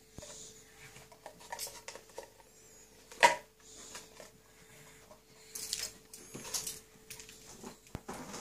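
Quiet handling noises of a child sprinkling chocolate sprinkles from a small ceramic bowl onto cupcakes in a metal muffin tin: scattered light knocks and rustles, with one sharp knock about three seconds in. A faint steady hum runs underneath.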